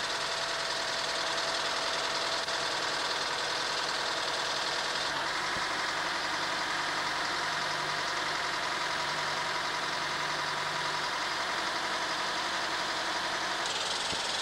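Crane lorry's engine running steadily, working the mounted loading crane. The sound shifts slightly about five seconds in and changes abruptly near the end.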